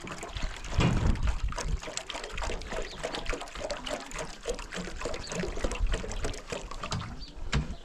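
Water pouring and splashing in an irregular run of small splashes, louder about a second in.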